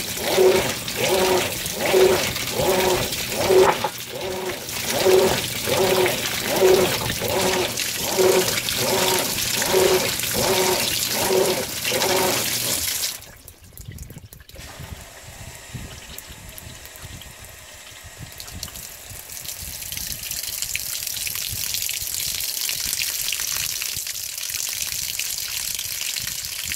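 Whirlpool Cabrio top-load washing machine filling on its Deep Water setting. Water sprays over the clothes in regular pulses about every three-quarters of a second until it cuts off about 13 seconds in. A single stream of water then pours into the drum, slowly growing louder.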